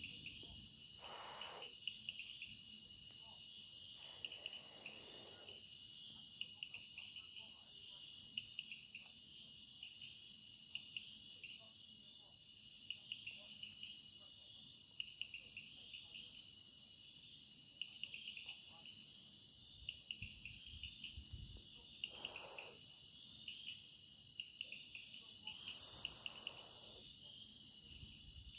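Chorus of crickets trilling steadily and high-pitched, with a second pulsing chirp that comes in phrases every two to three seconds. A few brief soft rushing noises pass behind it.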